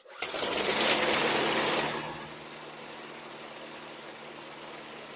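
The 1999 Yard-Man lawn mower's small single-cylinder engine fires on the pull and runs loud for about two seconds, then settles into steady running. It runs now that its magneto kill wire is no longer grounded.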